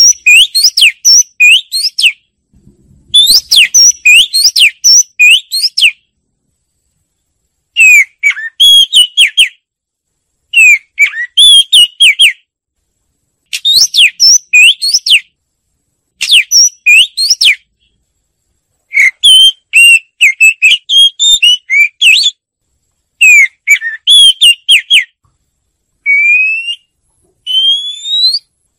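Oriental magpie-robin singing: repeated phrases of rapid, sliding whistled notes, each lasting a second or two, with short pauses between them. Near the end it gives a few slower, rising whistles.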